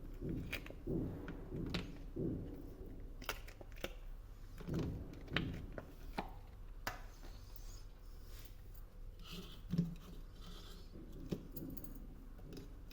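Irregular light clicks, taps and soft knocks of kitchen handling, with a few short scrapes a little past the middle.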